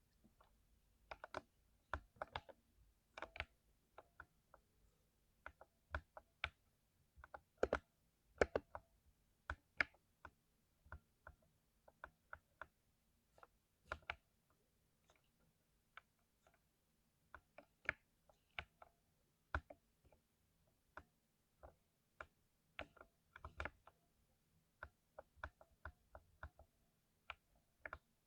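Keys of a lubricated mechanical keyboard being pressed one or a few at a time, making irregular, separate clacks with short pauses between them.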